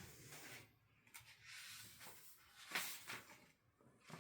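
Near silence with faint paper rustling from the pages of a picture book being handled and turned, and one brief, slightly louder rustle a little before three seconds in.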